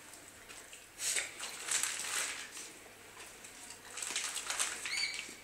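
A Doberman eating a frankfurter from the hand, with rustling and chewing noise in bursts: about a second in, again around two seconds, and about four seconds in. A short rising whine sounds near the end.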